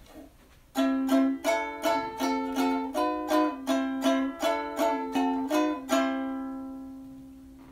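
Short plucked-string intro tune: a quick run of notes, about three a second, ending about six seconds in on a chord that rings out and fades away.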